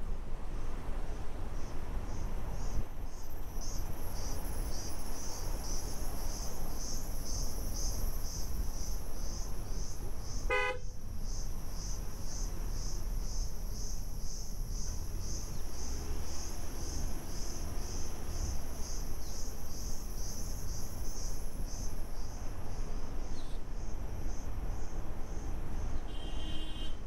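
Forest insects keep up a high-pitched chorus, pulsing about two to three times a second, over the low rumble of a vehicle on the move. About ten seconds in, a vehicle horn gives one short toot.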